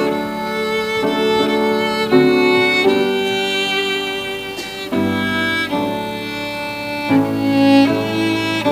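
Instrumental music led by a violin: a slow melody over held chords that shift every second or so.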